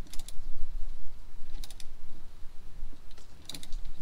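Sharp little clicks and taps of a wiper arm being handled and fitted onto its pivot at the base of the windshield, in three short clusters about a second and a half apart, over a steady low rumble.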